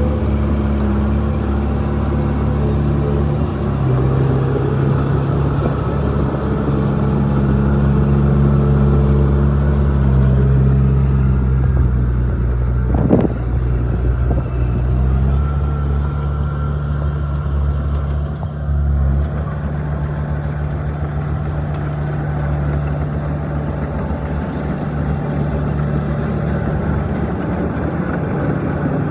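Bulldozer's diesel engine running hard, its steady note shifting in pitch a few times as the load changes, with a brief sharp sound about halfway through.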